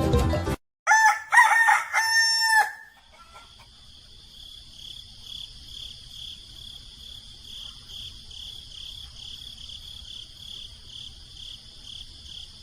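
A rooster crows once, about a second in, a loud call lasting about two seconds. After it, a steady high-pitched insect trill with an even pulse carries on quietly.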